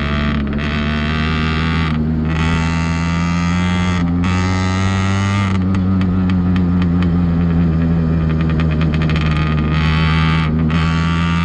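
Minarelli AM6 two-stroke engine, fitted with a CNC big-bore cylinder and 49 mm piston, running under load on a motorized bicycle. It is steady and loud, its pitch rising a little as the bike speeds up, with a few brief breaks in its higher rasp.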